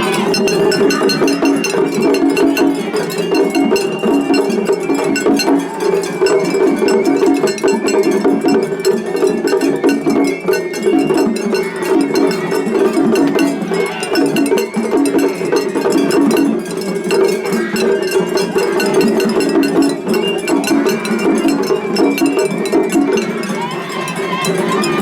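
Japanese festival hayashi music played without a break: taiko drums beaten in a fast, dense rhythm, with the clang of a small hand gong (atarigane) on top.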